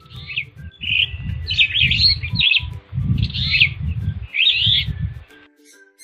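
Superb starling calling: several bursts of fast, chattering chirps and whistles, with a low rumble under each burst, stopping about five seconds in.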